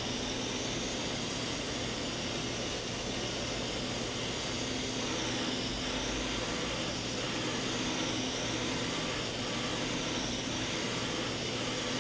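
Hardinge VMC 1500 XP3E vertical machining center running with a steady mechanical hum, a faint high whine dipping briefly in pitch about halfway through.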